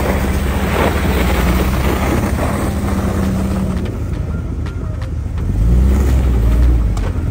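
Ford F-150 pickup's engine running steadily. About five and a half seconds in it revs up, rising in pitch and getting louder for about a second.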